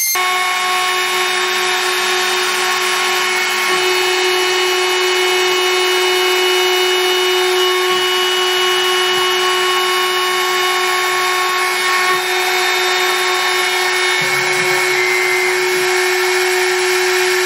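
CNC router spindle running an end mill through MDF, clearing a square pocket: a steady whine with the noise of the cut.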